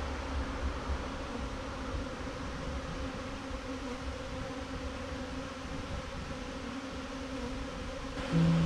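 A swarm of honeybees buzzing steadily as they are shaken into a hive box. Music comes in just before the end.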